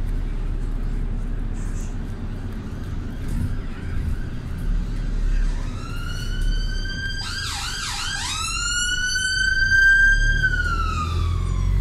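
Emergency vehicle siren: a wail rising from about halfway in, a quick run of yelps, then a long held tone that falls in pitch near the end. Under it runs the steady low rumble of the vehicle being driven.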